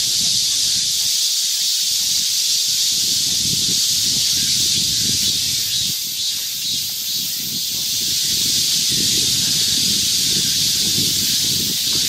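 Chorus of cicadas buzzing in a continuous, loud, hiss-like drone, with an irregular low rumble underneath.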